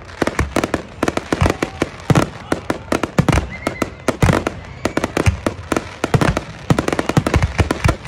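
Aerial fireworks display: a rapid, dense run of overlapping shell bursts and crackling reports, several bangs a second.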